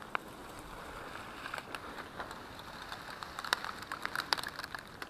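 Dry grass and weed stalks rustling and snapping as they brush past, an irregular run of sharp little clicks that is thickest about three and a half to four and a half seconds in.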